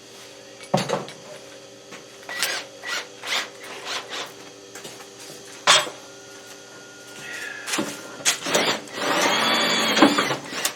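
Several separate knocks and taps, then a power drill runs for about two seconds near the end.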